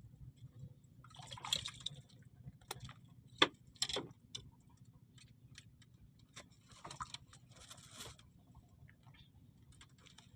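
Scattered sharp clicks and short bursts of clattering over a steady low hum, the loudest click about three and a half seconds in.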